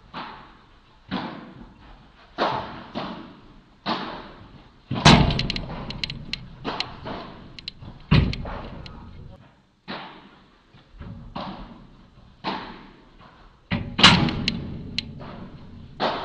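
Padel ball being struck back and forth by padel rackets and bouncing during a rally, a sharp knock every second or so, echoing in the hall. A few heavier, deeper thuds come about 5, 8 and 14 seconds in.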